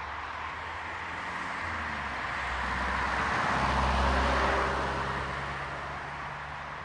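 A road vehicle passing by on an asphalt road: engine hum and tyre noise swell to their loudest about four seconds in, then fade away.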